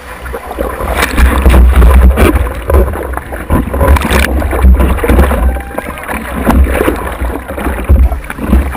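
Shallow surf sloshing and splashing over a surfboard and against a GoPro Hero2 waterproof housing at water level, with irregular heavy low rumbles of water hitting the case.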